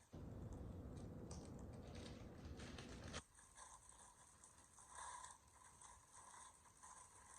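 Vegetables crushed under a high-heeled boot: crunching and tearing, loudest for the first three seconds, then fainter scattered crackles.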